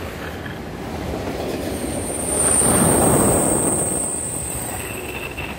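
Freight train of autorack cars rolling past, wheels rumbling on the rails. A high, steady wheel squeal sets in about two seconds in and fades near the end, while the rumble swells loudest around the middle.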